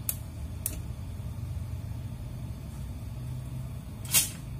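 Steady low hum of kitchen background noise while a wok heats on the stovetop burner, with two light clicks in the first second and a sharper knock about four seconds in.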